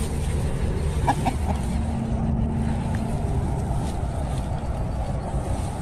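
Chickens clucking a few short times about a second in, over a steady low rumble.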